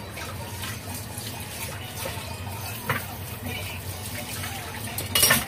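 Water boiling in a covered steamer pot on the stove while pumpkin steams, a steady bubbling hiss. There is a small click about three seconds in and a short, loud noisy burst just after five seconds.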